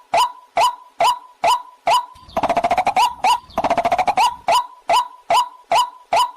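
Waterhen call: sharp, evenly repeated notes about two a second, broken a little over two seconds in by two spells of fast chattering, then the repeated notes again.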